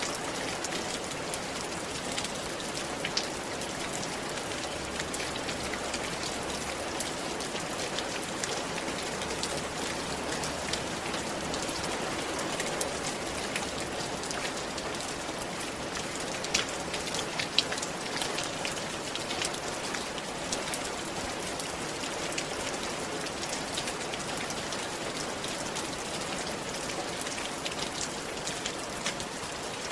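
Steady rain falling on a roof, an even hiss of rain with many individual drops ticking sharply on the roofing, a few louder drop hits standing out now and then.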